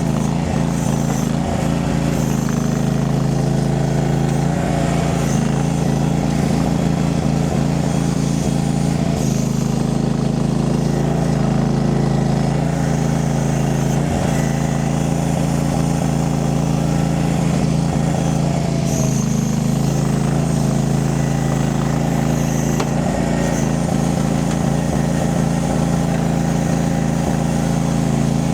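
Mini skid steer's engine running at a steady speed as the machine works.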